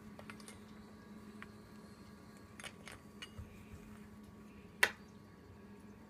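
Faint taps and clicks of a Moluccan cockatoo's beak handling a metal spoon, then one sharp clink just before five seconds in, over a steady low hum.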